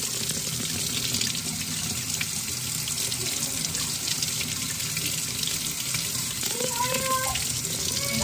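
Kitchen faucet running in a steady stream into the sink while hands rinse and squeeze a white cloth under the water.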